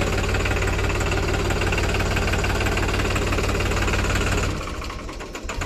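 Tractor's diesel engine running steadily at low speed, heard from the driver's seat, then dropping away sharply about four and a half seconds in.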